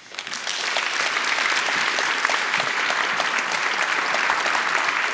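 Conference audience applauding: many people clapping, starting about half a second in and holding steady.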